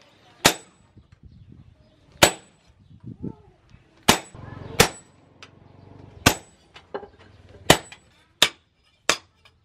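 Hammer blows on a handled cutting chisel cutting through a steel leaf spring on an anvil: about eight sharp metallic clangs, irregularly spaced, some with a brief high ring, coming faster near the end.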